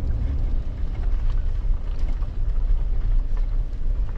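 Jeep driving slowly while towing a trailer: a steady low rumble of engine and tyres, with a few faint ticks.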